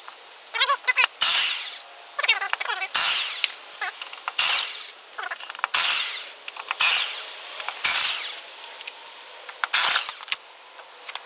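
Impact wrench removing wheel lug nuts, running in about seven short bursts with brief pauses between them.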